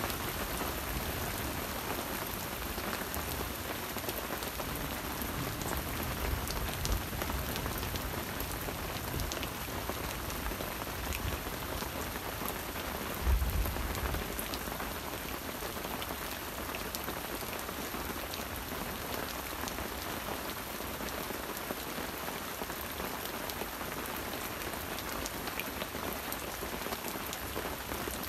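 Steady rain falling on the forest, a steady hiss with scattered sharp drip ticks. A brief low thump about halfway through.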